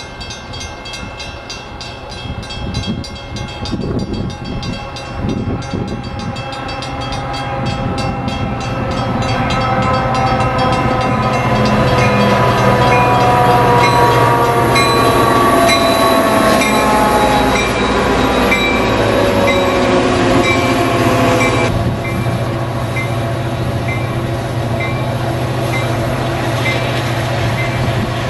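Metra diesel locomotive and bilevel passenger cars approaching and passing, the engine running loudly as it nears, with several tones sliding slowly down in pitch as it goes by. A bell rings at a steady beat while the locomotive passes.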